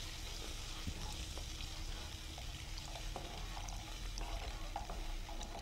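Onion-tomato masala sizzling in a kadai as water is poured in from a jug and stirred with a spatula, with scattered light scrapes and clicks of the spatula against the pan.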